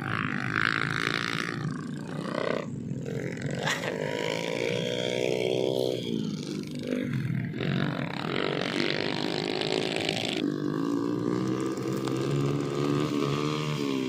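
Small motorcycle engine revving and labouring under a load of rice-grain sacks in soft paddy ground, its pitch rising and falling as the throttle is opened and eased.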